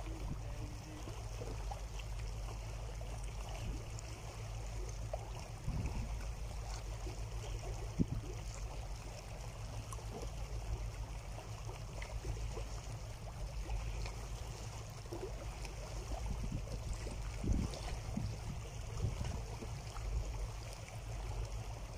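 Small sea waves lapping and trickling over shore rocks, with a steady low rumble underneath and scattered small splashes.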